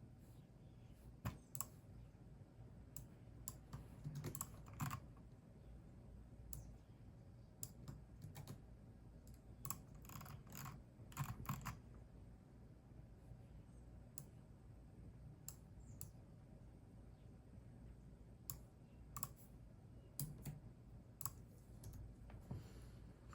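Computer keyboard typing, soft and irregular: scattered key clicks with a few short quick runs of keystrokes and pauses between.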